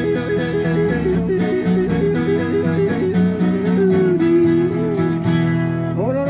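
Acoustic guitar and a zither-type string instrument play a country tune together, with short repeated melody notes over steady chords. Near the end a voice sweeps sharply up in pitch, the start of a yodel.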